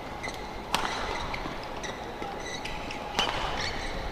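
Badminton rally: rackets striking the shuttlecock in sharp cracks, the two loudest about a second in and just past three seconds, with short shoe squeaks on the court mat in between.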